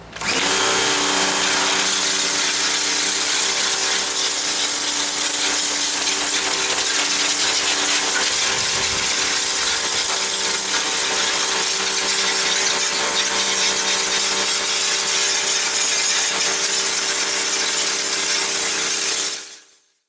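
A power tool running steadily with a strong hiss, then fading out near the end.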